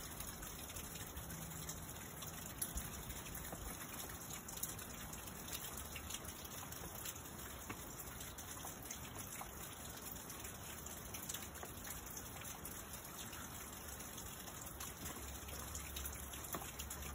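Steady faint hiss of outdoor background noise, like running water or wind, with a few faint taps scattered through it.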